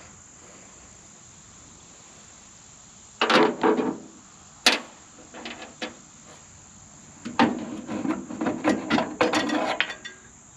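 Metal clanking and rattling in uneven bursts, with a single sharp knock a little before the middle and a longer run of clanks in the second half, as a metal bracket and bolt are worked onto a tractor's front grille.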